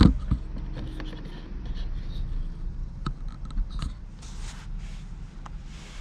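Hands handling a plastic Graco SnugRide infant car seat base: a sharp knock at the start, then scattered clicks, scrapes and rustles, with a few short swishes about four to five seconds in.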